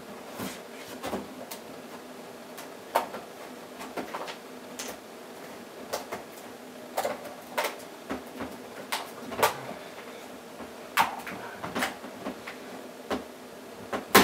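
Hard plastic blister packaging being cut and prised open by hand: a run of irregular sharp clicks, snips and crackles, the loudest near the end.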